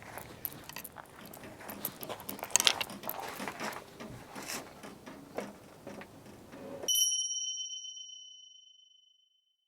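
Light clinks and knocks of stainless wood-stove and chimney parts being handled and set in place. About seven seconds in, everything cuts to silence and a single bright ding chime rings out and fades over about two seconds.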